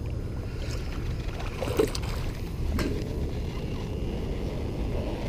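Steady low rumble of wind on the microphone, with a small bass splashing at the surface as it is reeled in. Two short sharp sounds come about two and three seconds in.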